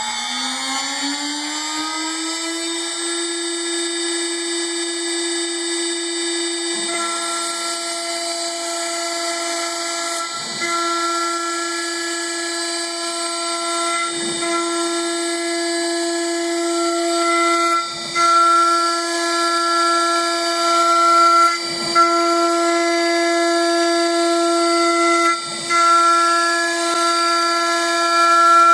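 High-speed machining spindle whining as it spins up to speed over the first couple of seconds, then holding a steady pitch. From about seven seconds in it is cutting foam, with a brief dip in the sound about every four seconds as the tool changes direction between passes.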